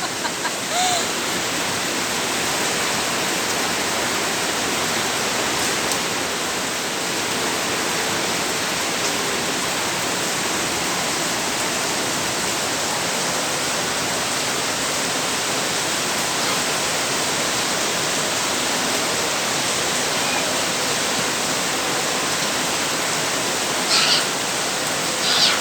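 Heavy rain pouring down: a steady, even rush of falling water.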